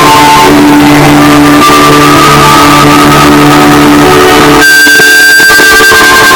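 Emergency-alert tones boosted to the point of heavy clipping and distortion. A pattern of electronic tones steps between pitches, then about three-quarters of the way through a single steady high alert tone takes over.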